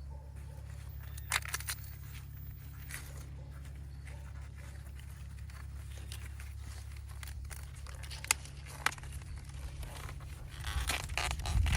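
Dry corn stalks and leaves rustling, with scattered sharp snaps and crackles as ears of corn are pulled from the stalks, and a denser rustle near the end; a steady low rumble runs underneath.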